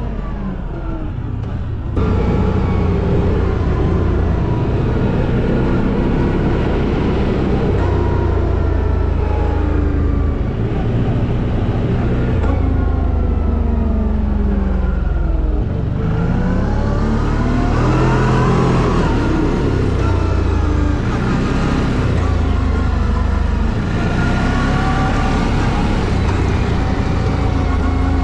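CF Moto 850XC ATV's V-twin engine running under way, heard from on the machine, its pitch rising and falling as the rider speeds up and eases off. It gets louder about two seconds in.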